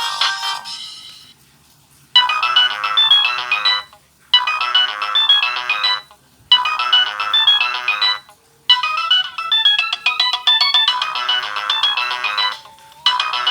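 A polyphonic Nokia ringtone played through a Samsung SGH-A157 flip phone's speaker. One tune fades out in the first second or so, and after a short silence a new electronic melody starts about two seconds in. The new melody repeats in short phrases of about two seconds, with brief gaps between them.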